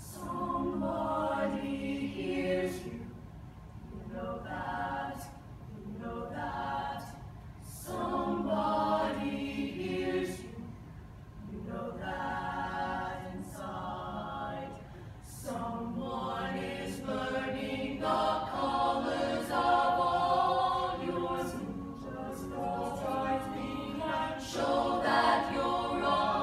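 Mixed-voice show choir singing in harmony, in sung phrases of a few seconds with short breaks between them.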